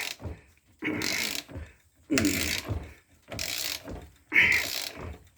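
Ratchet wrench clicking in about five strokes, roughly one a second, turning a nut welded onto a broken bolt to back the bolt out of a steering knuckle.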